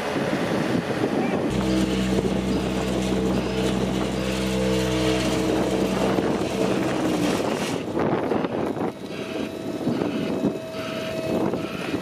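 Diesel engine of a Cat CB10 tandem asphalt roller running at a steady speed as it drives along: an even, steady hum that starts abruptly about a second and a half in and dies away around seven seconds. Rougher machine noise surrounds it.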